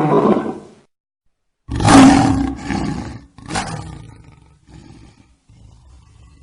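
Lion roaring. A roar dies away about a second in. After a short gap comes a loud roar, then a shorter second one, then a run of quieter, low, fading grunts, as at the end of a lion's roaring bout.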